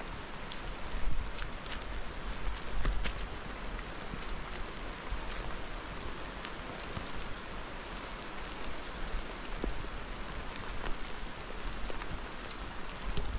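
Steady rain falling, an even hiss with scattered sharp ticks of drops and a low rumble underneath.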